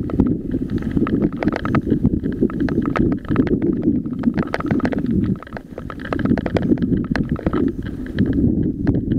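Mountain bike riding over loose rocky gravel: a dense clatter of stones under the tyres and the bike rattling, over a heavy rumble of wind on the microphone. The wind rumble eases briefly about halfway through.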